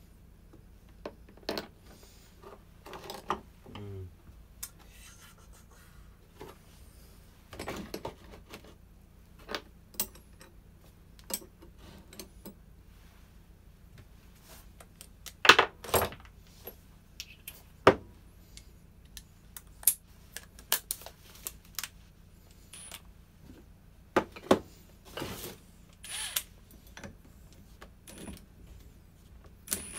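Scattered clicks, knocks and clinks of hand tools and small metal and plastic parts being handled, with a few sharper knocks about halfway through.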